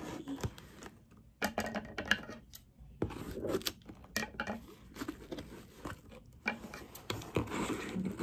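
Cardboard parcel being opened by hand: irregular rustling, scraping and tearing of cardboard and packing tape, with short clicks from handling scissors.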